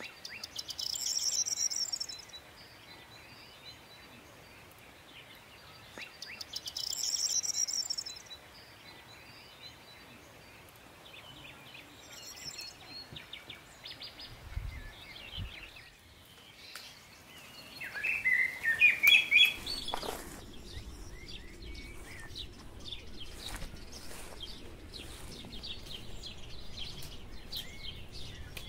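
Birds singing and chirping outdoors: two buzzy, rapidly pulsed trills about six seconds apart, a louder run of chirps about eighteen seconds in, then many short chirps over a faint steady background hum.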